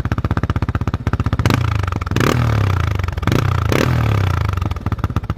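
Yamaha Warrior 350 ATV's single-cylinder four-stroke engine idling, then revved twice with the throttle, each rev rising and falling back to a steady idle.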